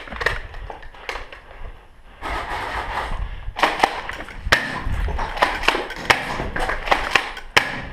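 Footsteps and movement over rubble and debris: a few faint knocks, then from about two seconds in a busy rustling, crunching noise with sharp irregular knocks and cracks.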